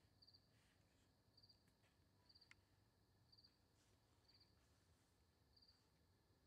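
Faint chirping of a cricket, one short pulsed chirp about once a second, over near silence.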